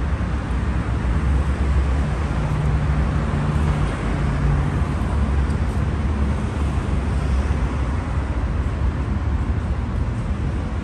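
City street traffic noise: a steady, deep rumble of road vehicles, with one engine's hum standing out for a couple of seconds near the middle.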